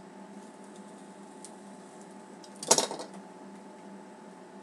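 Hands handling a stack of trading cards, mostly quiet, with one short clattering burst about three seconds in, over a steady low hum.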